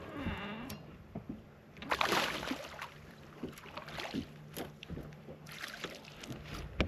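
A hooked bass being played and landed beside a fishing boat: water splashing, loudest about two seconds in, with scattered knocks and clicks against the boat and a sharp knock near the end. A short whine sounds at the start, and a faint steady low hum runs underneath.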